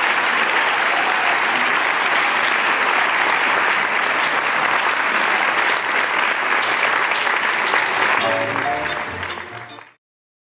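Audience applauding over music; both fade out near the end.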